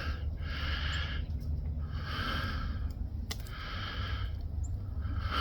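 A person breathing close to the microphone: slow, regular breaths, about three, over a steady low rumble, with a single sharp click about a third of the way through.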